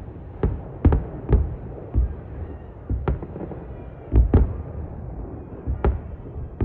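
Fireworks going off: about ten sharp booms and cracks at uneven intervals, some coming in quick pairs, over a low continuous rumble.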